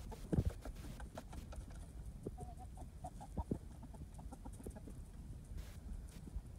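Chickens clucking now and then among scattered rustles and knocks, the loudest about half a second in and again about three and a half seconds in.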